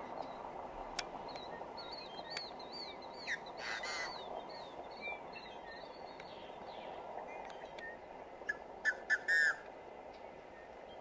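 American coot chicks peeping: a rapid run of short high-pitched peeps through the first several seconds, with louder, fuller calls about four seconds in and a quick cluster of them near the end, over steady low background noise.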